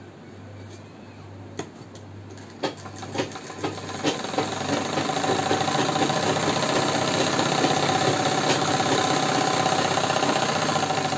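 Sewing machine stitching a seam through the cloth, with a few clicks at first and then running steadily at speed from about four seconds in.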